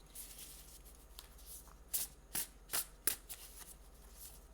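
A deck of oracle cards being shuffled by hand: soft sliding of cards, then a run of crisp card snaps from about two seconds in.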